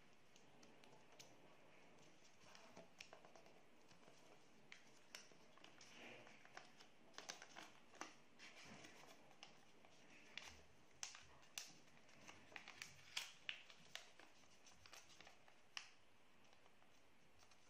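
A square of coloured origami paper being folded and creased by hand: faint, irregular crinkles and sharp little crackles of the paper as the folds are pressed down.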